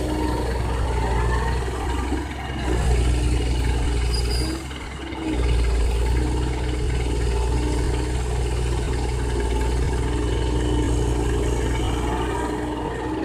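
Komatsu PC130 excavator's diesel engine running steadily while it digs and loads. The engine sound drops for about a second near the middle, then picks up again.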